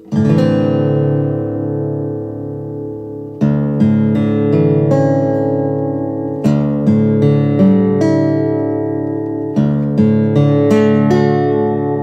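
Instrumental background music of acoustic guitar chords, each struck and left to ring, with a loud chord at the very start and groups of strums every few seconds after.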